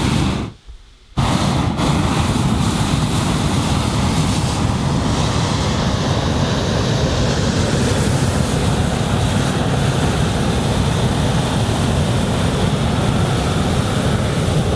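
A hot air balloon's propane burner firing into the envelope to inflate it: a very short blast, a pause of under a second, then from about a second in a long steady burn.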